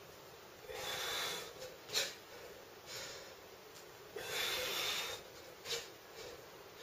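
A man breathing hard as he grips a pull-up bar: two long forceful exhalations about three and a half seconds apart, each followed by a short sharp sound.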